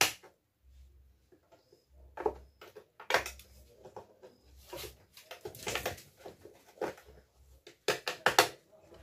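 Knife scraping and prying inside a dustpan's handle socket to break out the pieces of an old broken handle: irregular clicks and short scrapes, the loudest cluster near the end.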